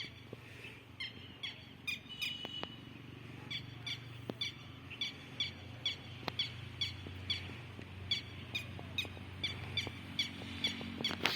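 Small birds chirping: short, high, falling chirps repeated about three times a second, over a faint low steady hum.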